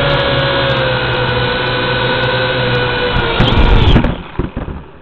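WLToys V686G quadcopter's motors and propellers whining steadily, heard close up from the drone itself. A little over three seconds in it touches down on paving with a loud bump and scrape, the motors spin down, and a few light knocks follow.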